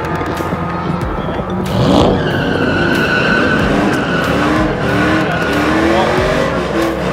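Camaro doing a burnout: the tyres squeal in a steady high tone while the engine revs up and down.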